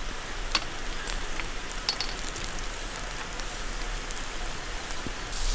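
Wild boar kebabs sizzling over hot charcoal: a steady spattering hiss of meat juices and fat dropping onto the coals, with a few sharp clicks as the metal skewers are turned.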